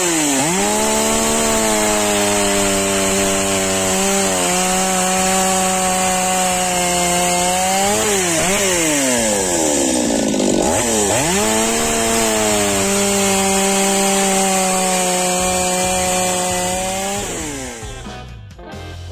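STIHL 023 chainsaw's two-stroke engine running at high revs while cutting wood; the revs dip and climb back at the start and again around the middle, then fall away near the end. The saw, just repaired after refusing to start, now runs and holds its revs.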